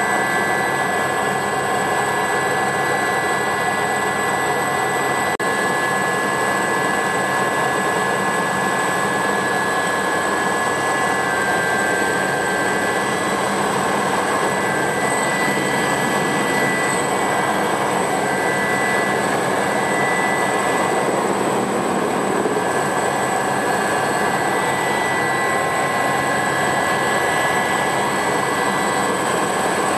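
Aérospatiale Alouette II SA318C helicopter in flight, heard from inside its cabin: the Turbomeca Astazou turboshaft's steady high whine over the constant rush of rotor and airflow noise.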